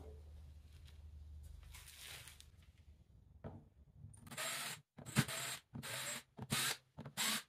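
Ryobi cordless drill running in about six short bursts, backing screws out of the wooden backing board on a sand-casting box, with a whine from the motor in each burst; the bursts begin about halfway through, after quiet handling of the box.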